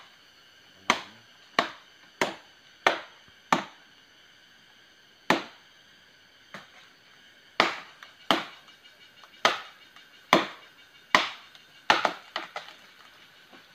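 Parang (machete) chopping into wood: about fourteen sharp blows at uneven intervals, roughly one a second, with a pause of about two seconds after the first six and a few lighter taps near the end.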